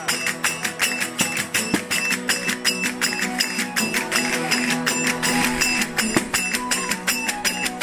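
A verdiales folk band playing: several guitars strummed in a fast, even rhythm of about five strokes a second, together with a violin, a jingle frame drum and small hand cymbals.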